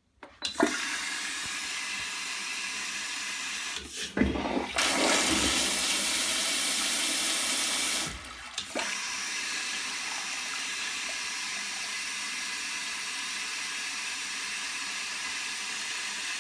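High-end electronic toilet flushing. A click about half a second in starts a steady rush of water, a louder surge follows from about four to eight seconds in, then a steady flow of water that stops near the end. Quite a flush.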